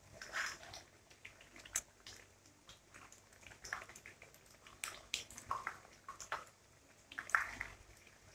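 Chicken nuggets deep-frying in hot oil in a frying pan, crackling irregularly, while metal tongs turn them over with occasional clicks against the pan.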